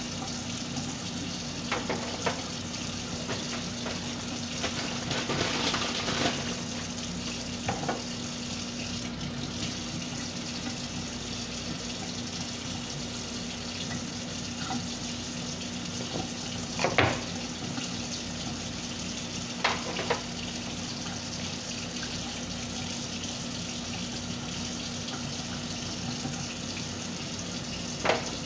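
Steady hiss with a low hum under it, broken by a few short knocks and rustles from hands handling bacon and an aluminium foil pan on a stone counter; the loudest comes about seventeen seconds in.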